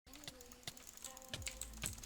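Computer keyboard keys clicking: about six sharp, unevenly spaced clicks in two seconds.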